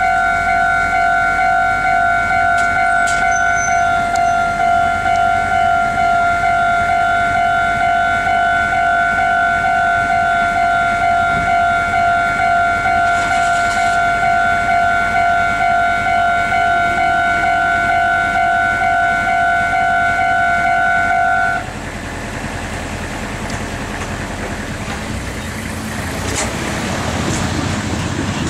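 Japanese railway level-crossing warning bell ringing, a fast, even run of electronic dings on one steady pitch. It cuts off suddenly about 21 seconds in, and a low vehicle rumble then builds toward the end.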